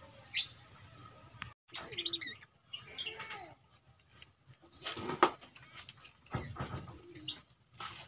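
A flock of budgerigars chirping and chattering, short high chirps and warbling calls in quick bursts from several birds.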